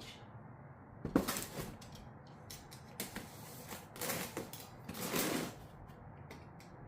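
Box cutter slicing through the packing tape and cardboard of a shipping box: a sharp click about a second in, then four short cutting strokes.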